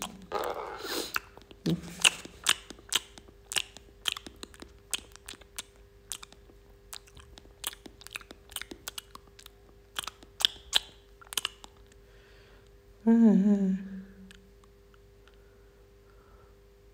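Baby monkey eating from its lunch tray: many small crisp crunching and chewing clicks over the first twelve seconds or so. About thirteen seconds in, a short wavering vocal sound.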